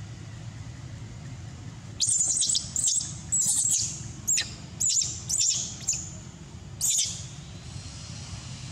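A bird calling in a quick run of about seven sharp, very high-pitched chirps, starting about two seconds in and stopping about two seconds before the end, over a steady low background hum.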